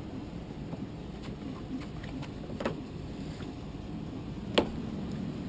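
Plastic car door trim panel being handled against the door while its clips are lined up: light taps and knocks, with one sharp click about four and a half seconds in, over steady low background noise.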